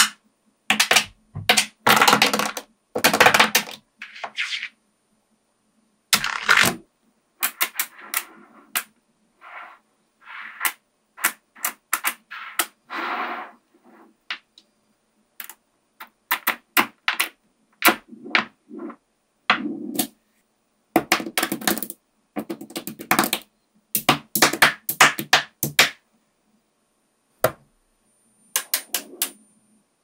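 Small magnetic metal balls clicking and rattling as hands press, pull and snap them together, in bursts of rapid clicks with silent gaps between.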